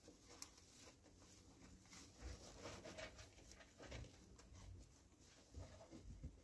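Near silence, with faint scattered rustles and soft taps.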